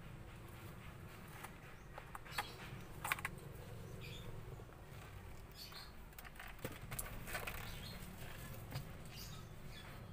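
Scattered light clicks and rustling from handling a car's steering wheel and its wiring connectors as the wheel is lifted off the column.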